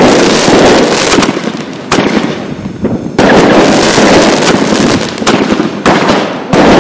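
Consumer fireworks battery firing: shots and bursts follow one another about every one to one and a half seconds, each trailed by dense crackling from the bursting stars.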